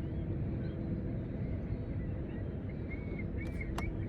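Steady low drone of a boat's motor running, with a faint steady hum. A few short high chirps and a sharp click come near the end.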